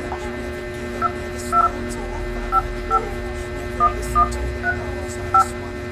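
Dial-pad key tones from an Infinix Smart 5 smartphone: about eight short two-tone DTMF beeps at uneven intervals as keys are tapped, picked out like notes on a piano. A steady low hum runs underneath.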